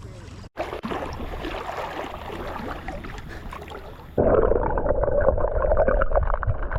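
Water sounds around a kayak on a river. A short cut comes near the start, then an even wash of water noise. About four seconds in, it switches abruptly to a louder, muffled rushing with rapid crackles.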